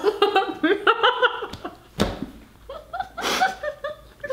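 Two women laughing in short bursts, one of them through a mouthful of sushi, with a single thump about two seconds in.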